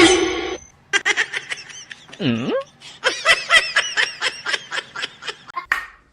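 A person laughing in rapid, rhythmic bursts, with a short swooping vocal sound that dips in pitch and rises again about two seconds in.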